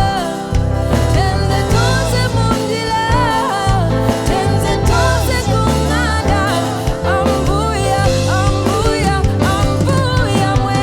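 Live afro-soul band playing, with a woman singing a wavering melody over a bass line and drum kit.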